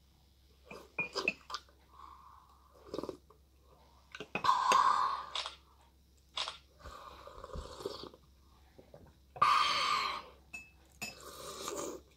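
Slurping very hot chocolate off a spoon, sucking air in with it: a series of noisy slurps, the two loudest about five and ten seconds in, with a few small clicks between.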